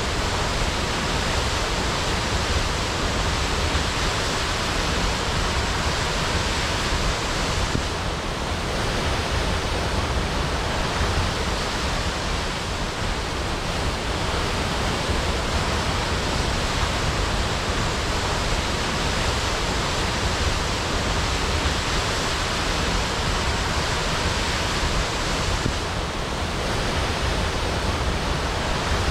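Waterfall crashing: a steady, dense rush of falling water, easing slightly twice.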